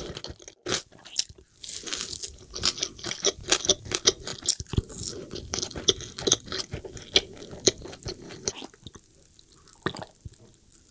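Close-miked biting and chewing of crunchy fried food, with many sharp crunches; the crunching thins out and goes quieter near the end, with a last few crunches.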